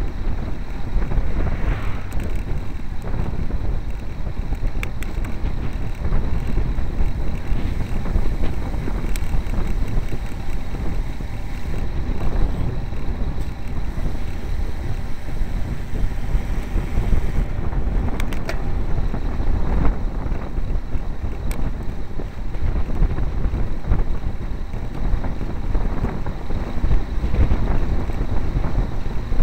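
Wind buffeting the microphone of a camera riding on a road bicycle at speed: a steady, loud low rumble, with a few faint clicks about two-thirds of the way through.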